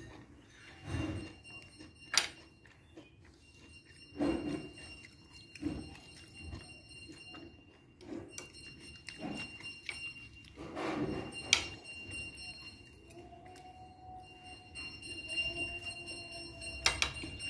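Quiet, irregular eating and tableware sounds: soft dull thumps at uneven intervals and a couple of sharp clinks, as of a spoon against a dish, over a faint steady high whine.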